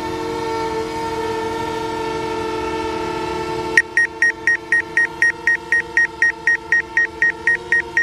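DJI quadcopter drone hovering close by, its propellers giving a steady, chord-like hum. About four seconds in, a rapid high electronic beeping starts alongside it, about three to four beeps a second.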